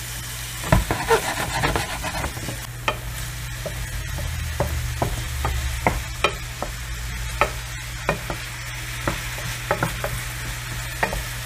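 Diced onions, celery and carrots sizzling in hot oil in a skillet while a wooden spoon stirs them, with irregular clicks and scrapes of the spoon against the pan.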